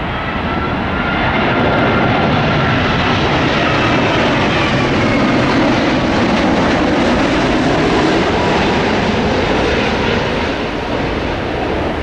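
Jet airliner's engines passing close by on a landing approach: a loud, steady roar with a faint whine, swelling over the first couple of seconds and easing slightly near the end.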